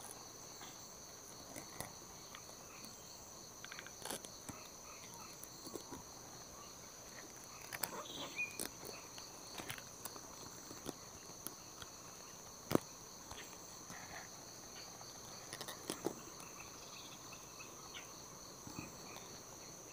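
Night insects, crickets, chirring in a steady high-pitched chorus, with scattered faint knocks and clicks and one sharper click about 13 seconds in.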